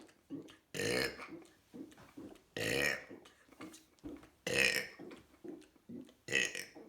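A person burping repeatedly: four loud burps about two seconds apart, each lasting about half a second, with softer short sounds between them.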